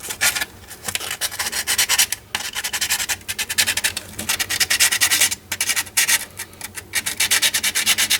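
320-grit wet/dry sandpaper rubbed quickly back and forth over the turn signal socket's metal contacts, scouring off oxidation, with a few brief pauses. The oxidized contacts are a suspected cause of the turn signal not working.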